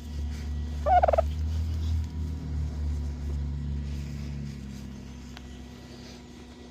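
Domestic turkey gobbling once, a short warbling call about a second in, over a steady low hum that fades out toward the end.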